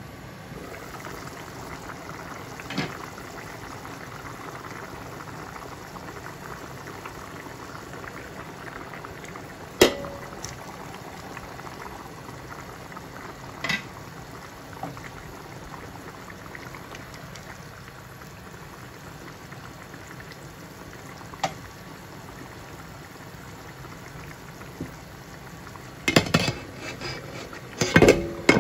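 Small-fish curry boiling in a pan: a steady bubbling hiss. A few sharp clinks of the glass lid against the pan, the loudest about ten seconds in and a cluster near the end.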